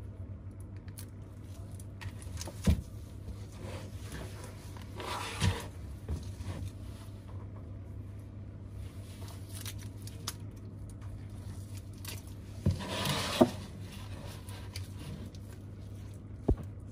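Handling on a repair bench: a few light knocks and clicks as the tablet and its plastic clamps are moved and set down, with two brief bouts of rustling or scraping, over a steady low hum.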